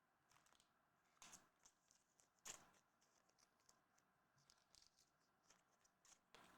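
Faint rustling and light ticks of trading cards being handled: cards slid and flicked against one another and packs worked open, in short swishes with the loudest about two and a half seconds in.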